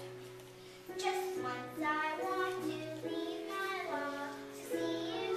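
Children singing a song together over a musical accompaniment, the voices coming in about a second in, with a steady low electrical hum underneath.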